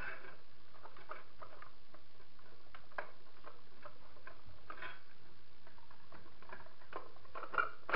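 Scattered small plastic clicks and taps from the MDI cistern fill valve head being worked by hand inside the ceramic cistern as it is eased up off its catch, with a couple of louder knocks near the end.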